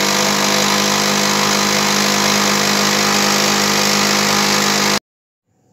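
Old Brother single-needle industrial sewing machine running steadily at speed on a test run after its oil pan and oil filter were cleaned: a steady mechanical whirr over a low hum, which the owner judges no longer very noisy. It cuts off suddenly about five seconds in.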